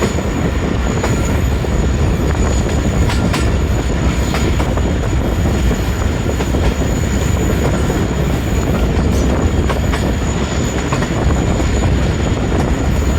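Passenger train running on the track: a steady loud rumble of wheels and rails with a thin high whine over it and a few sharp clicks now and then.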